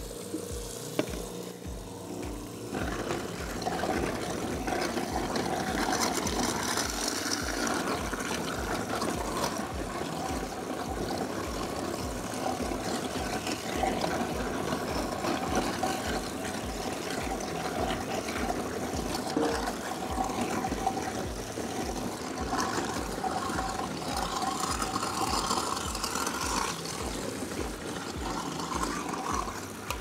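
InSinkErator Pro 1250 garbage disposal grinding food waste, including chicken bones and corn cobs, with faucet water running into it, a steady rushing, churning noise that swells about two and a half seconds in. The disposal runs without slowing under the load.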